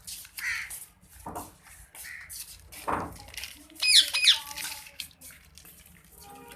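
Indian ringneck parrot calling: a string of short squawks and chirps, loudest a quick burst of sharp, sliding high calls about four seconds in.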